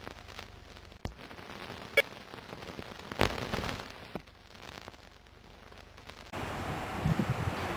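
A few scattered sharp clicks and knocks, one with a brief ringing tone, over a faint background; about six seconds in, a steady outdoor ambience of even hiss with a low rumble starts abruptly.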